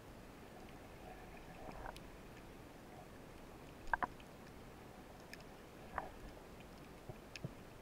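Faint underwater ambience picked up through a diving camera's housing: a steady low hiss with a few short clicks and creaks, the loudest a double click about four seconds in.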